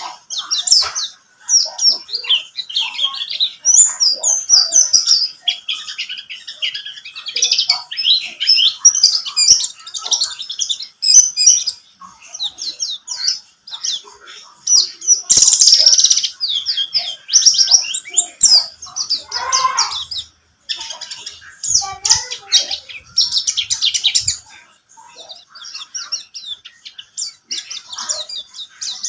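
Oriental white-eye (pleci, buxtoni race) singing a fast, continuous twittering song of high chirps, broken by a couple of brief pauses.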